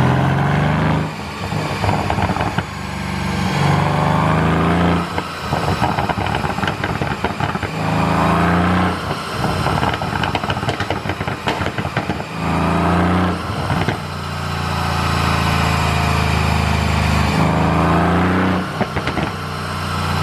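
Mercedes-AMG C63 (W205) twin-turbo V8 revved in short blips about five times. As the revs fall after each blip, the exhaust crackles and pops on the overrun, the effect of a pop-and-crackle exhaust tune. Between blips it settles to idle.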